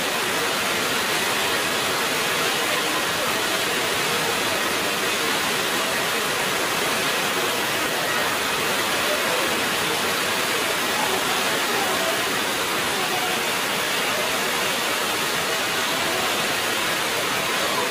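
Heavy rain pouring steadily, an even, unbroken hiss.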